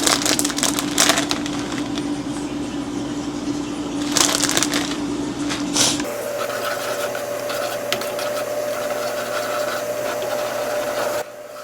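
A steady mechanical hum with rustling and scraping at the start and again about four seconds in. About six seconds in the hum switches abruptly to a higher pitch.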